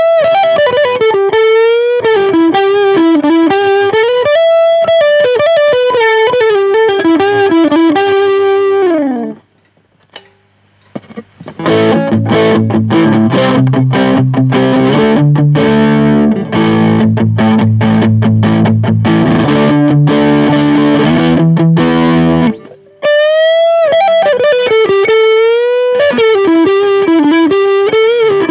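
Charvel Spectrum electric guitar with DiMarzio HS-2 pickups, played with overdrive. Sustained single-note lead lines with bends and vibrato stop briefly about a third of the way in. Low, driven chords in a steady rhythm follow for about ten seconds, and bent lead notes return near the end.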